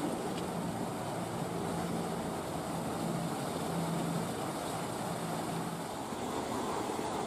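Steady outdoor background rumble with a faint low hum that comes and goes.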